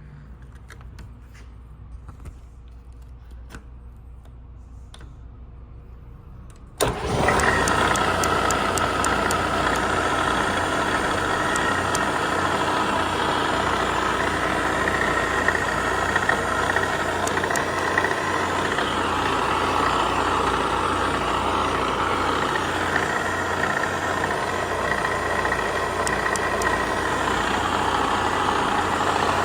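Bridgeport milling machine switched on about seven seconds in, its spindle motor and drive then running steadily and loudly. Before that only a low hum and a few faint clicks.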